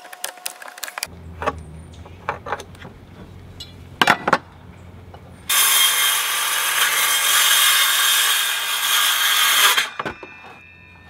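A few sharp knocks in the first half, the loudest a pair about four seconds in, then a cordless circular saw cutting through a wooden trim board for about four seconds, stopping abruptly near the end.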